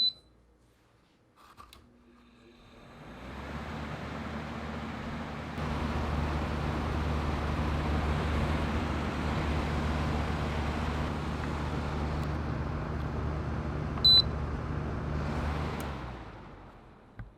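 Window air conditioner on a test run: a short control-panel beep as it is switched on, then the fan spins up into a steady rush of air over a low motor hum, growing louder about five seconds in. A second beep near the end, after which the fan winds down.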